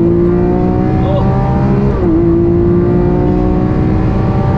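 Lamborghini Aventador LP 700-4's V12 engine accelerating hard at full throttle. Its pitch climbs steadily, drops sharply about two seconds in on an upshift, then climbs again.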